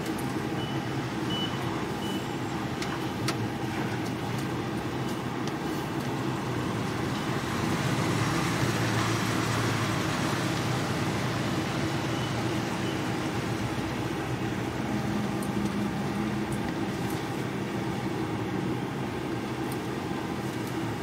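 Truck's diesel engine running at low speed, heard from inside the cab, growing somewhat louder about eight seconds in.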